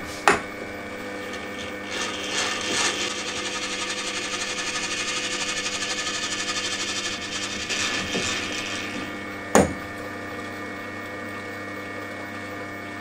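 Milling machine table traversing along the X axis in sped-up footage: a steady mechanical running sound with a rapid even ripple through the middle. A sharp click comes just after the start and another about two-thirds of the way through.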